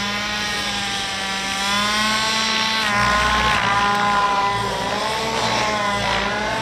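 Miniature Aircraft Whiplash gas RC helicopter in flight: its two-stroke petrol engine runs at high speed with a steady buzzing note. The pitch dips and rises again a few times as the model manoeuvres and climbs, and it gets a little louder about two seconds in.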